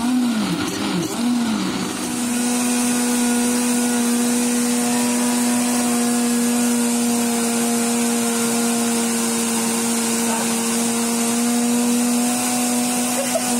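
Electric blender running with a thick passion fruit mousse mixture in the jar. For about the first two seconds the motor pitch wobbles up and down about every half second as the mixture churns, then it settles into a steady hum.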